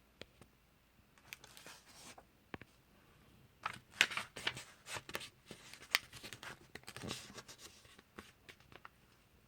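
Paper rustling and crackling as a comic book is handled, its pages flipped, in a run of quick irregular rustles and clicks.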